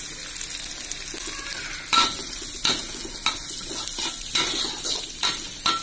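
Sliced shallots, garlic and chillies sizzling in hot oil in a wok while being sautéed until fragrant. A metal spatula scrapes and knocks against the wok several times as they are stirred, the loudest knock about two seconds in.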